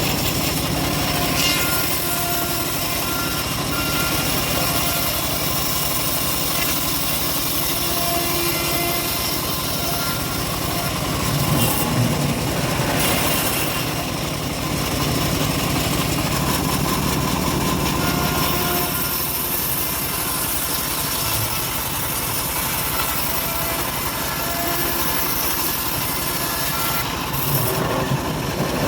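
Engine of a homemade bandsaw mill running steadily while the blade saws an old teak log.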